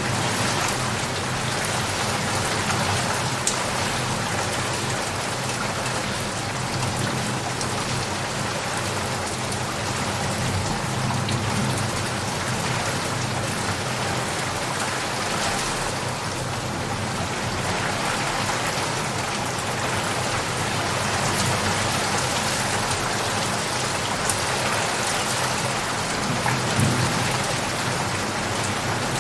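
Steady, dense rain falling, with low rolling rumbles of distant thunder swelling underneath from time to time.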